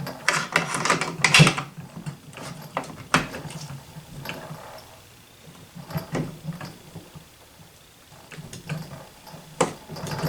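Steel parts of a .50 BMG Model 95 rifle clicking, knocking and sliding against each other as the bolt carrier and receiver are worked by hand. The bolt carrier has come loose and sits crooked, so the parts will not line up. The knocks come irregularly, thickest at the start and again near the end.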